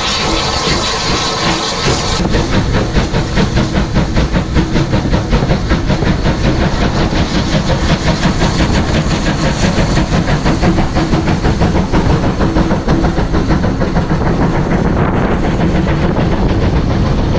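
Steam locomotive 34028 Eddystone, a rebuilt Bulleid West Country class three-cylinder Pacific, working hard under way, with quick, even exhaust beats and a steady hiss of steam over the rumble of its running gear. The hiss is strongest in the first couple of seconds.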